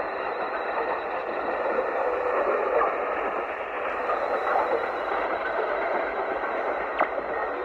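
A weak long-distance AM shortwave broadcast on 6160 kHz heard through a receiver, the programme buried in steady hiss and static with no clear words. A single static crackle comes about seven seconds in.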